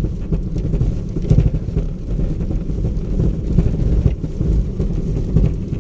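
Car driving on a road, a steady low rumble of engine and tyres heard from inside the cabin.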